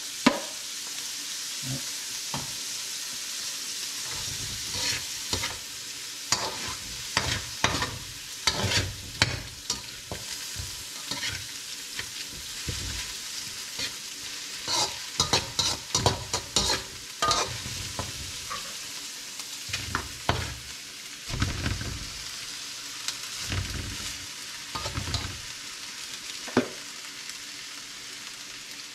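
Diced vegetables (peas, carrots, green onion) sizzling in a hot stainless steel pan, with a metal spatula scraping and clicking against the pan as they are stirred, irregularly.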